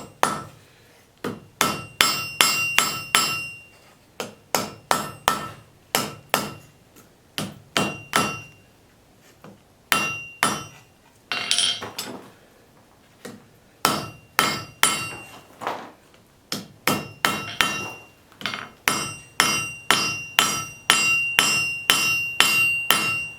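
Blacksmith's hand hammer forging hot steel on an anvil: runs of sharp, ringing strikes, about three or four a second, broken by short pauses.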